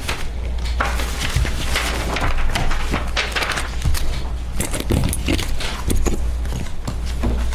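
Paper rustling and shuffling as sheets and cardboard folders are leafed through and handled on a table, in irregular soft crackles and knocks, over a steady low hum.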